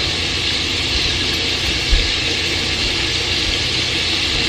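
Sliced sausage sizzling in a cast-iron skillet: a steady frying hiss, with one low thump about two seconds in.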